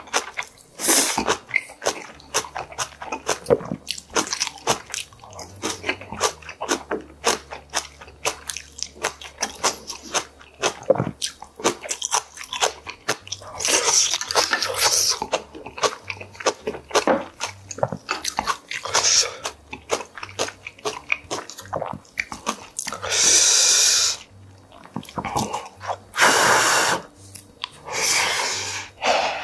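Close-miked chewing and crunching of fresh napa-cabbage kimchi and boiled pork: a dense run of wet crunches and mouth clicks, with a few louder, noisier sounds of about a second each in the second half.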